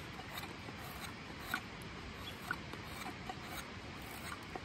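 Crooked knife paring shavings off an old-growth redwood blank in short scraping cuts, about one a second. Underneath is the steady rush of a snowmelt-swollen creek.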